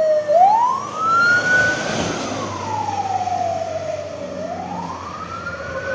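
Fire truck siren wailing: one slow rise in pitch over about two seconds, a slower fall, then a rise again near the end.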